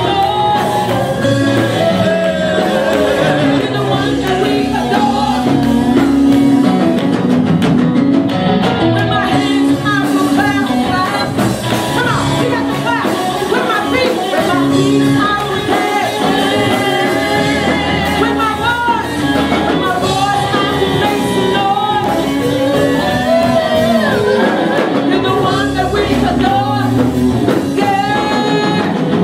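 Live gospel band performance: a woman sings lead over backing vocalists, with electric guitar and drum kit, the music continuing without a break.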